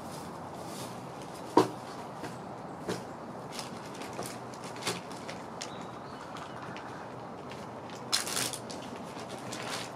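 Cat eating dry kibble: scattered crisp crunches and clicks, the loudest a single sharp click about a second and a half in and a quick cluster of crunches near the end, over steady background noise.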